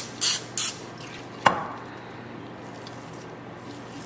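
Aerosol cooking spray hissing into a glass baking dish in two short spritzes, then a single sharp knock about a second and a half in.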